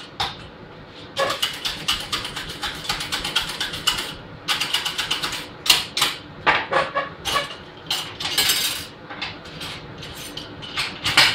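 Metal parts and tools being handled: a run of irregular clinks, clicks and rattles, with a short scraping hiss near the end.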